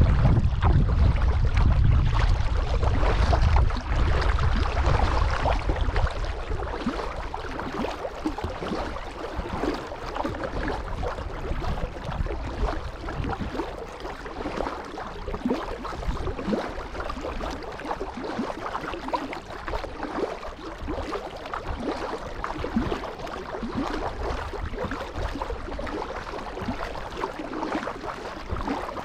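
Kayak on a pond: water splashing, dripping and lapping around the paddle and hull in a steady wash of small splashes. A low rumble of wind on the microphone fills the first few seconds, then drops away.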